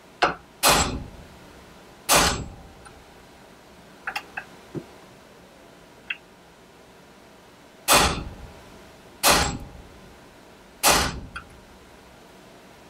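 Hammer blows on a staking punch, driving metal of the receiver end plate into a castle nut's notch to stake it: a light tap, then five sharp metal-on-metal strikes, two close together and three more after a pause, with small clicks of the punch between.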